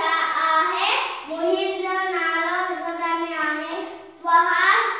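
Children's voices in a sing-song chant of long, held syllables, pausing briefly about four seconds in.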